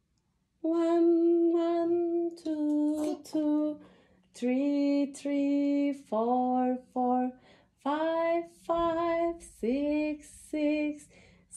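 A woman singing slowly in held, stepping notes, a simple sung count of the numbers in English. It starts about half a second in, after a brief silence.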